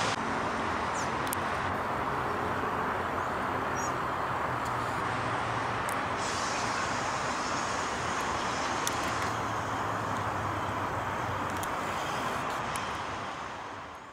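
Steady roar of road traffic, fading out near the end.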